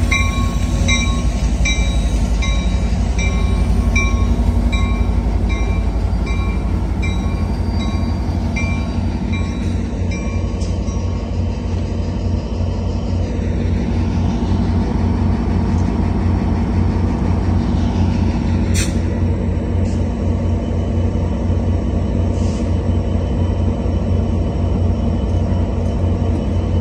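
Amtrak F59PHI diesel locomotive's bell ringing steadily over the low rumble of its EMD 710 engine as the Capitol Corridor train pulls in along the platform and slows to a stop. The bell stops about ten seconds in, leaving the steady diesel rumble, with one sharp click about nineteen seconds in.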